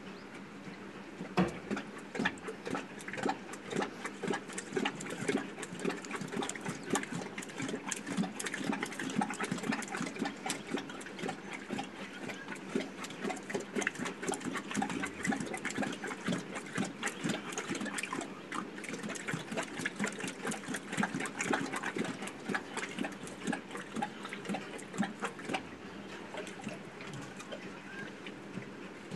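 Asiatic lion lapping water from a stone trough: a rapid, irregular run of wet clicks and splashes that starts about a second and a half in, over a faint steady hum.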